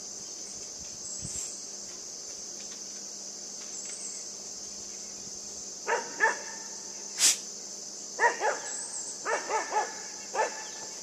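Great Pyrenees–Siberian Husky mix puppy giving short, high yelping barks, about eight of them in quick clusters in the second half, with one sharp click among them. Insects chirr steadily underneath.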